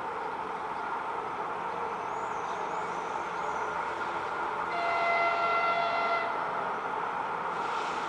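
Passenger train hauled by a Czech-built ChS-series electric locomotive rolling past with a steady rumble of wheels on rail. Around the middle the locomotive sounds one high horn blast of about a second and a half.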